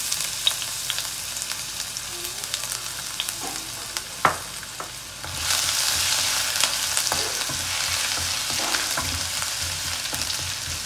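Chopped ginger sizzling and frying in hot coconut oil in a non-stick kadai, with small crackling ticks and one sharp tap a little over four seconds in. About halfway through the sizzle grows louder as the ginger is stirred with a wooden spatula.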